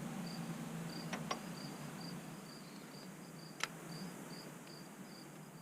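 A cricket chirping steadily, about two short chirps a second, with a few isolated sharp clicks from the work.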